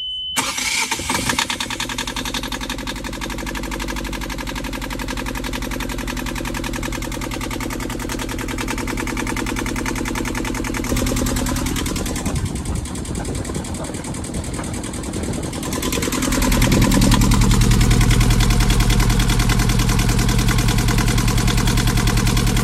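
Yanmar 2GM20F two-cylinder marine diesel starting at once and settling into a steady idle. About two-thirds of the way through it becomes louder and deeper.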